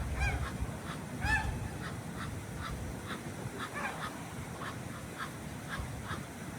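Ducks quacking: a few clear calls near the start, about a second in and around four seconds, with many short faint calls in between, over a steady low rumble.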